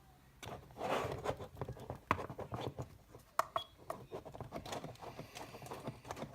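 Handling noises: a quick run of clicks and taps over rustling.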